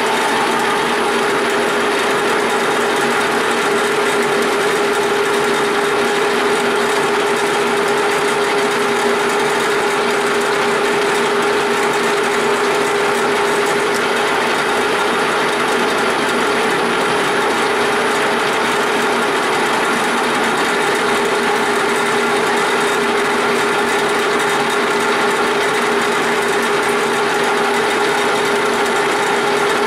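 1942 Springfield 16-inch engine lathe running steadily under power feed, its gear train whirring with a steady hum, while it takes a turning cut on a 1-inch mild steel bar.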